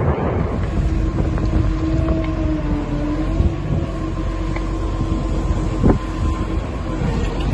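Wind buffeting the microphone over a steady engine drone. There is a single sharp knock about six seconds in.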